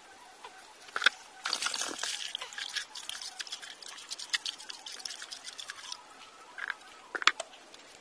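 Wet mortar with coarse sand being worked in a builder's bucket: dense gritty scraping with many small clicks for several seconds, with a sharp knock about a second in and another near the end.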